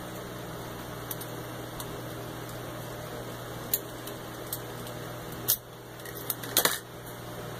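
Small plastic and metal parts of a 3D printer's extruder carriage clicking and knocking as they are handled, over a steady low electrical hum. A handful of separate clicks, the loudest two in the second half.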